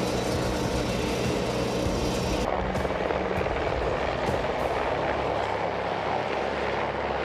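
Military transport helicopter flying low overhead, with steady rotor and engine noise. The sound changes about two and a half seconds in.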